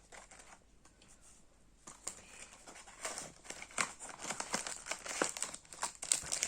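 Plastic packaging crinkling and crackling in the hands as a toy packet is handled and squeezed, starting about two seconds in after a quiet start.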